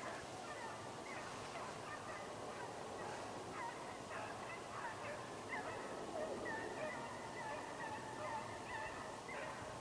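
Distant animal calls: many short faint calls scattered throughout, several falling in pitch, with a longer held call about two-thirds of the way in.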